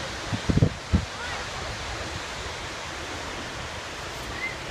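Snoqualmie Falls, a large waterfall, rushing with a steady, even noise of falling water. About half a second to a second in, a few low thumps hit the microphone.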